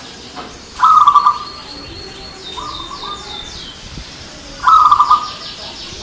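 Zebra dove (perkutut) cooing: two loud, rapid trilling phrases, about a second in and near the five-second mark, with a softer one in between. Small birds chirp in quick high series in the background.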